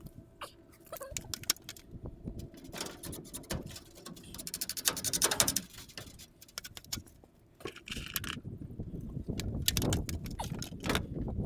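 Hand work on an old wooden door with tools and small hardware: scattered clicks, rattles and knocks, with a brief run of rapid clicking about five seconds in.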